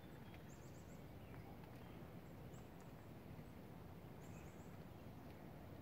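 Near silence over a low steady rumble, with faint high chirps of a distant small songbird: a quick run of four notes about half a second in, a single chirp, then another run of four notes about four seconds in.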